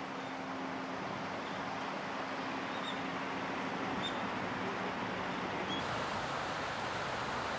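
Steady outdoor rushing noise, with a faint low hum in the first few seconds and a few faint short high chirps.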